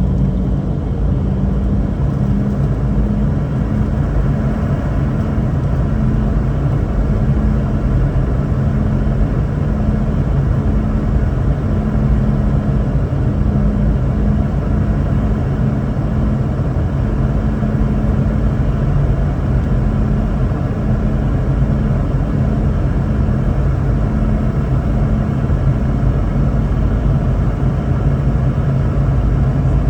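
Steady cabin noise of a Boeing 717-200 in flight: a constant deep rumble of airflow and its rear-mounted Rolls-Royce BR715 turbofan engines, with a low hum running through it.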